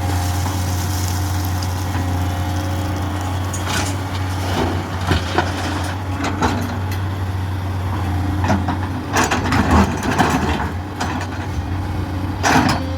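Heavy diesel engine running steadily, with scattered knocks and clattering that start a few seconds in and come in louder bursts about two-thirds of the way through and near the end.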